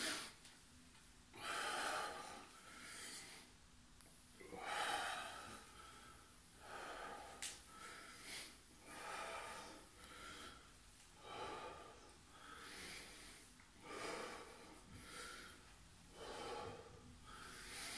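A man breathing hard during a bodyweight core exercise, one loud breath every one to two seconds. There is a brief sharp click about halfway through.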